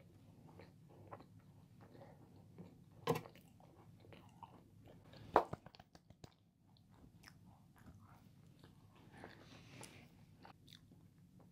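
A person chewing a macaron with the mouth closed: faint, soft mouth noises, with two sharper clicks about three and five and a half seconds in.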